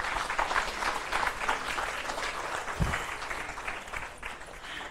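Audience applauding in a hall: a dense patter of many hands clapping that thins out toward the end, with a single dull thump about three seconds in.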